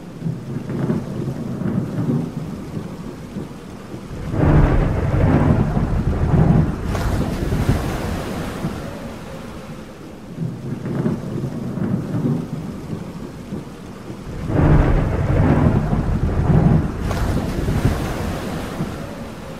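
Thunderstorm ambience: rain with rolling thunder. Two loud rolls of thunder come about four seconds in and again about ten seconds later, with lighter rumbling between them.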